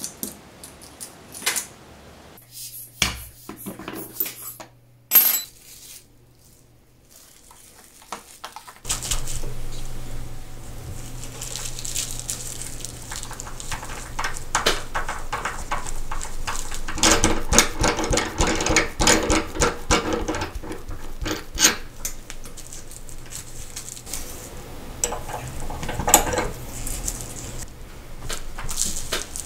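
Close-up handling sounds at a watchmaker's bench: metal tool clinks and the crinkle of plastic bubble wrap as a case-back opener die is fitted to a Rolex Oyster case back. A few sharp clicks at first, then near-continuous clinking and crinkling from about nine seconds in.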